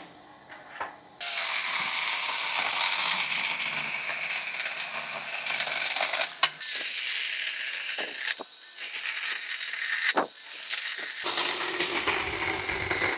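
Dagmara 6-inch cordless battery mini chainsaw running and cutting through a branch. It starts about a second in, dips briefly a few times, and stops near the end.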